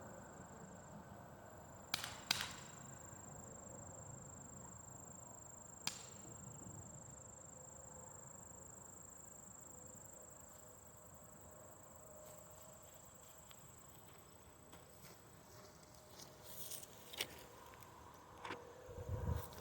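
Glock 19 replica BB pistol fired as a double tap: two sharp snaps less than half a second apart about two seconds in, then one more sharp snap about four seconds later. Between them the background is faint, with a steady high thin whine that stops partway through and a few small knocks near the end.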